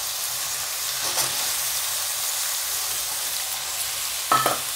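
Freshly added sliced mushrooms, capsicum and green peas sizzling steadily in hot oil in a non-stick kadai, with a short scrape about a second in and another near the end.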